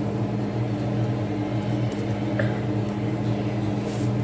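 Steady machine hum from a running appliance or fan. Over it, a couple of faint snaps as sweet potato leaves are plucked from their stems.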